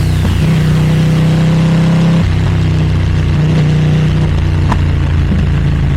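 Ducati V2 twin-cylinder engine running through a Termignoni exhaust at steady revs while riding, its pitch shifting about two seconds in.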